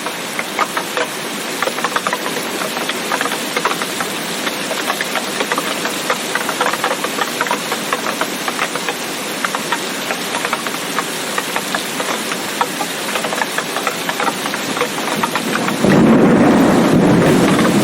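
Steady rain with a dense patter of drops. About two seconds before the end a louder, deeper rumble cuts in suddenly and holds.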